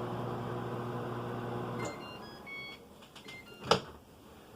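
Whirlpool microwave oven running with a steady hum, which stops about two seconds in. A few short electronic beeps follow, then a single sharp click near the end.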